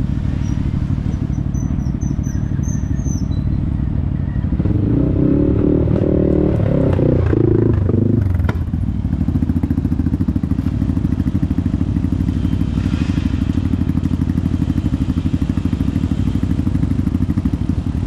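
ATV engine running steadily under way, revving harder for about four seconds from roughly a quarter of the way in, then settling back to a steady drone.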